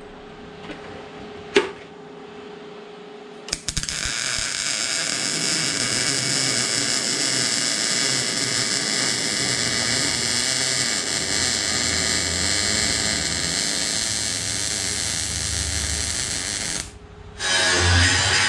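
MIG welding arc running a bead on a steel bracket, a loud steady buzz that starts about three and a half seconds in after a low hum and a single click. Near the end the buzz stops, and an angle grinder starts grinding the weld.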